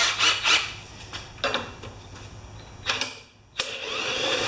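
Honda HRA214 mower's recoil starter pulled several times, with short rasping strokes, then about three and a half seconds in the flooded engine catches and starts running steadily.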